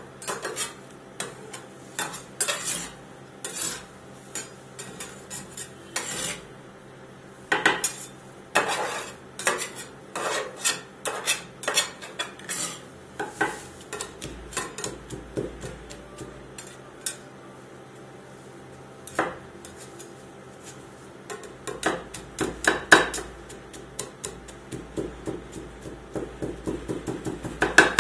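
Two steel scrapers chopping apple pieces into the cream base on the steel cold plate of a rolled-ice-cream machine: irregular metal-on-metal clacks and scrapes, with a quick flurry of strokes near the end.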